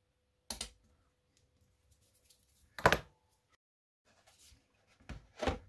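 A few sharp knocks and taps as a model aircraft cowl and a small hand tool are handled on a workbench. One knock comes about half a second in, the loudest near three seconds, and two more close together near the end.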